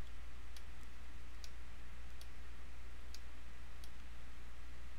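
Faint computer mouse clicks, several spread out at irregular intervals, over a steady low electrical hum.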